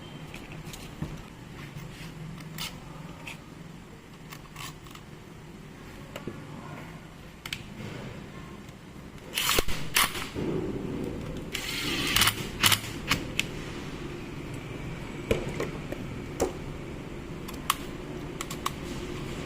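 Scattered sharp clicks and clatter of small parts being handled, with two louder scraping rustles about ten and twelve seconds in, over a faint steady low hum.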